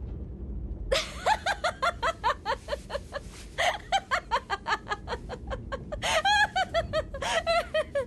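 A woman laughing hard in a long run of quick laughs, starting about a second in, over a low rumble.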